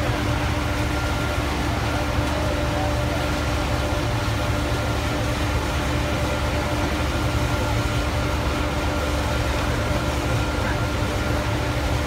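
Pulverized coal burner firing: a steady low rushing noise of flame and forced air, with a constant hum from its blower running through it.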